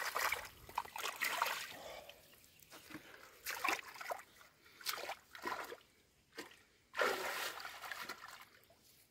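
Hands groping and scooping through shallow muddy water, feeling for fish: irregular splashes in short bursts with brief pauses between, and water trickling off the hands.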